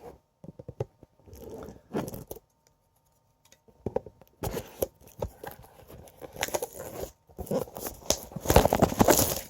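A boxed card game and its packaging being handled and opened: irregular rustling, scraping and tearing. There is a quiet pause of about a second partway through, and the noise grows busier and loudest near the end.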